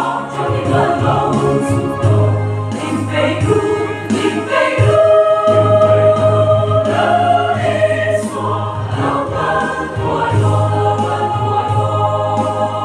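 Large mixed choir of men's and women's voices singing a gospel hymn in parts, with long held chords.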